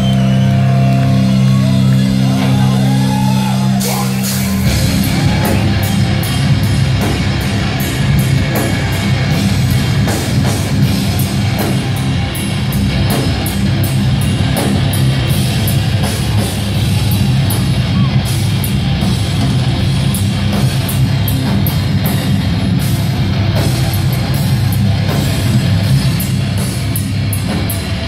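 Hardcore band playing live at loud volume: distorted guitars and bass hold a low chord, then drums and cymbals kick in about four to five seconds in and the full band plays on at a driving pace.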